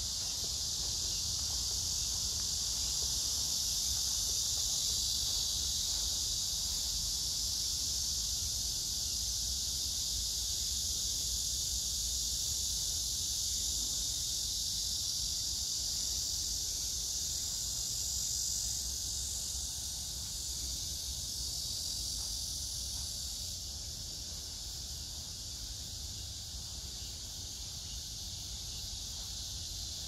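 Summer chorus of cicadas and grass insects: a steady, dense, high-pitched buzz that dips slightly in level about two-thirds of the way through.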